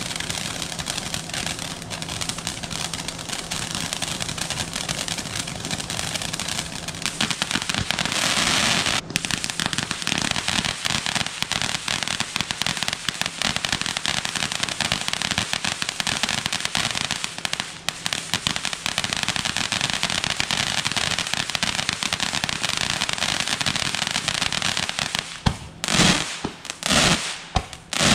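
Crackling fountain firework, the Pyro Predator Jigsaw, spraying a dense, continuous crackle. Near the end come three sharp bursts, its volleys of crackling mines.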